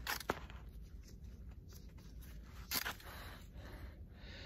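Faint handling noises from hose clamp pliers and an intake pipe in gloved hands: a couple of sharp clicks right at the start and another a little before three seconds in, with light scraping and rustling between them.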